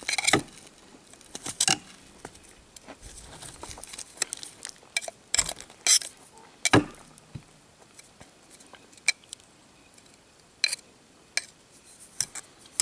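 Scattered clinks, taps and scrapes of a K-Bar knife blade working chocolate and marshmallow off a Glock pistol. About a dozen separate short sounds come with quiet gaps between them.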